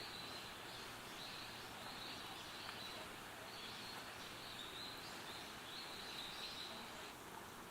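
Steady rural outdoor ambience, a soft even hiss, with a high-pitched call repeating in short phrases until shortly before the end.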